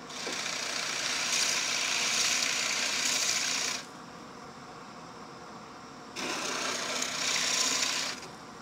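A drill press driving a 1.5-inch Forstner bit into plywood twice, each cut a harsh rasping, the first about four seconds long and the second about two. Under it runs the steady hiss of a shop vacuum drawing the chips through the dust shroud.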